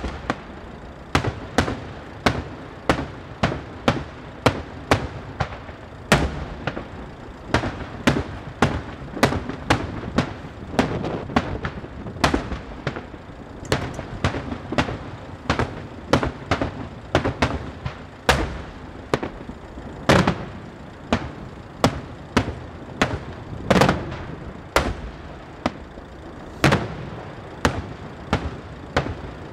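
Daytime fireworks: aerial shells bursting in a rapid, unbroken series of sharp bangs, more than one a second.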